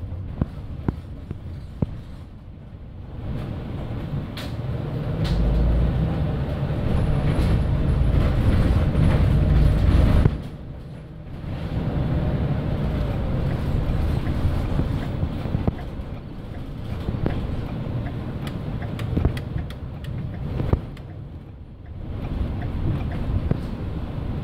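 Vehicle engine and road noise heard from inside the cab while driving. The noise builds over the first ten seconds, drops off suddenly, then picks up again. Small clicks and rattles run through it.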